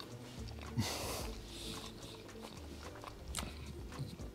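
Quiet sounds of a person chewing a mouthful of smoked pork-rib sandwich, with a brief breathy noise about a second in and small mouth clicks.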